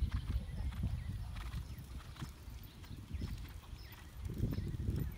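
Hoofbeats of a horse moving over sand arena footing, over an uneven low rumble that swells louder a little before the end.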